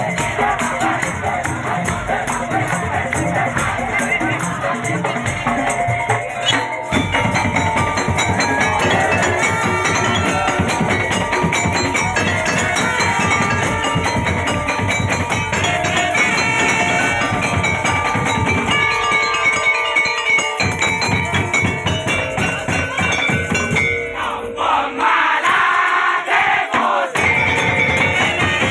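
Loud music with rhythmic shaken and jingling percussion and singing voices, with crowd noise, dropping its low end briefly a few times.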